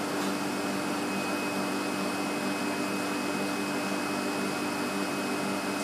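Steady machine hum with an even hiss and a thin high whine, unchanging throughout.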